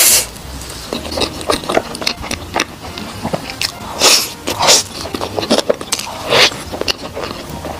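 Close-miked eating of a soft cream dessert off a plastic spoon: many small wet mouth clicks and smacks, with a few louder smacking bursts at the start, around four seconds in, and again past six seconds.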